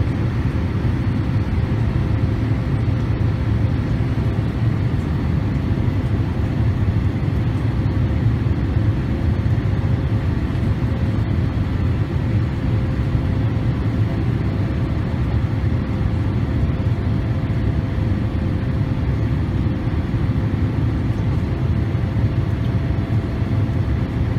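Steady cabin noise of a Boeing 787 in its climb after takeoff: a low rumble of the jet engines and rushing air, with a faint steady hum over it.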